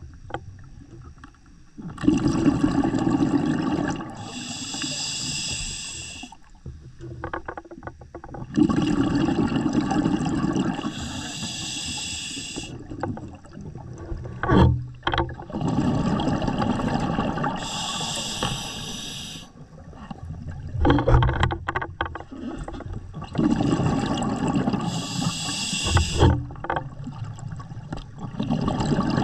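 Scuba diver breathing underwater through a regulator: a hiss on each breath in alternates with the rumble and gurgle of exhaled bubbles, about one breath every six seconds.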